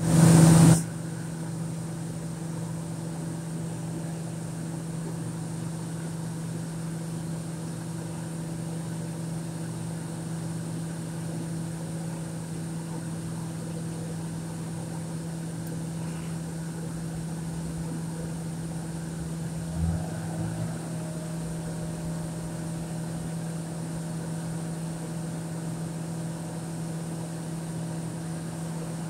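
Steady drone of heavy offshore machinery, with a constant low hum and no change in speed. A brief loud rush of noise comes in the first moment, and a small knock about two-thirds of the way through.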